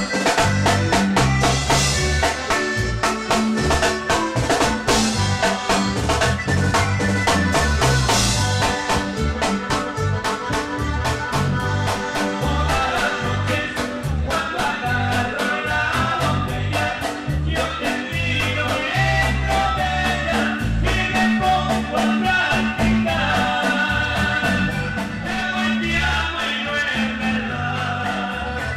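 Live Latin dance band playing with a steady dance beat: timbales and drum kit, electric bass and keyboards.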